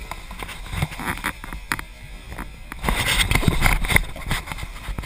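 Dirt bike engine running at low speed and popping irregularly as the bike picks its way down a leafy wooded slope, growing louder about three seconds in as it comes closer.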